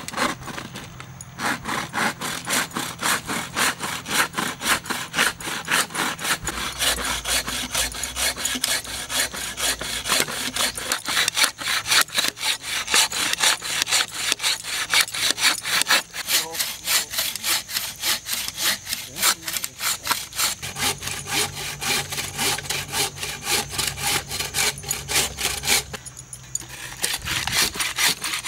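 Hand saw cutting through wood in steady, even back-and-forth strokes, with a short pause about a second in and another near the end.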